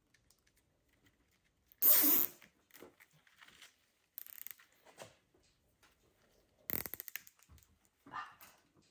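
Evergreen branches rustling as they are handled and bunched together, with a loud rustle about two seconds in and a quick run of sharp clicks a little before seven seconds.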